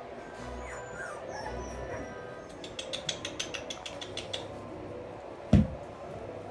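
Young cocker spaniel puppies moving about: faint short whimpers near the start, a quick run of small clicks in the middle as they scamper, and one short loud thump about five and a half seconds in.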